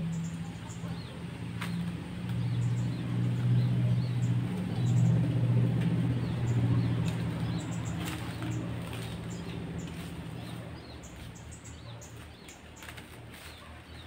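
Short, high bird chirps and whistles scattered throughout, over a low droning hum that swells in the middle and fades away after about ten seconds.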